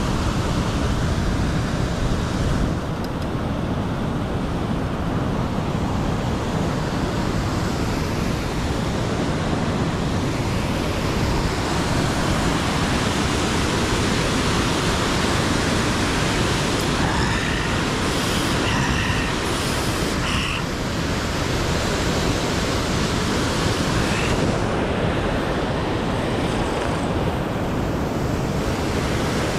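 Steady rushing of a waterfall pouring down a rocky stream.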